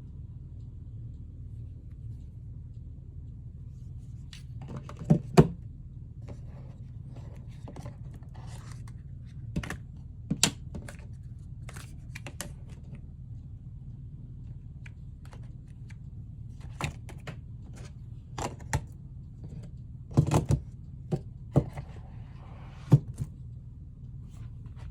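Unboxing handling of a phone box and its packaging: irregular taps, clicks and knocks with brief scraping and rustling, several sharp knocks standing out, over a steady low hum.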